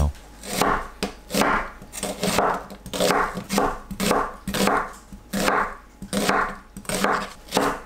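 Chef's knife slicing a peeled onion on a wooden cutting board: a crisp crunch through the onion ending in a knock of the blade on the board, about two strokes a second.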